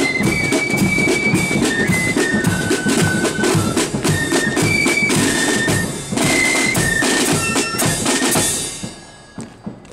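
Marching corps of drums playing a tune: flutes carry the melody over rattling side drums, a bass drum and cymbals. The music ends about nine seconds in, leaving a few scattered taps.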